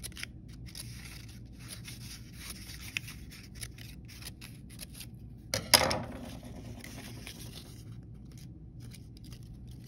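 Scissors snipping a strip of colored paper into a fringe, a run of short cuts one after another, with one louder knock of handling about six seconds in.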